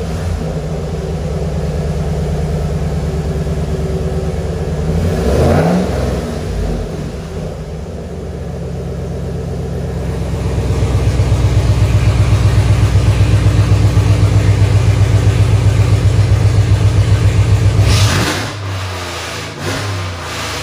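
Ram 1500's 5.7-litre Hemi V8, just started and idling through a catless exhaust with the electric cutout closed, so the exhaust runs through a QTP screamer muffler. It is blipped briefly about 5 s in, runs louder with an even throb from about halfway, then revs briefly near the end and settles lower.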